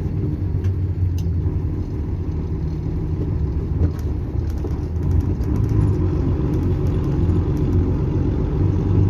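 Mercedes-Benz 1620 truck's six-cylinder diesel engine pulling under load, heard from inside the cab as a steady low drone. It dips briefly about four seconds in, then grows slightly louder.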